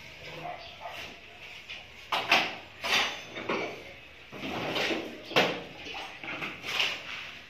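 Steel shovel scraping and knocking on a concrete floor while mixing sand and cement for tile mortar: about half a dozen rough scrapes, irregularly spaced, starting about two seconds in.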